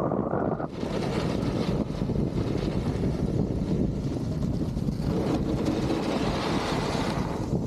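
Wind rushing over the microphone of a snowboarder riding downhill, mixed with the hiss of the board sliding on snow. The noise is steady and loud, shifting slightly a couple of times.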